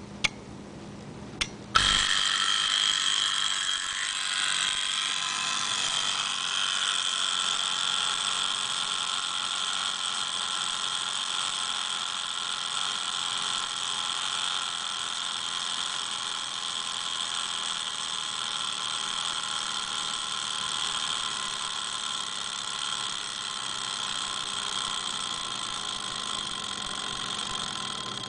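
Omega travel clock's alarm going off: a couple of clicks, then about two seconds in a steady, high buzz starts and keeps going, gradually getting a little quieter.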